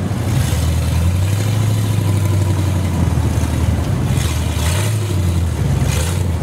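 Off-road 4x4 truck engine working under load on a rock-ledge climb, its pitch stepping up and down with the throttle. Short hissing bursts come about four and six seconds in.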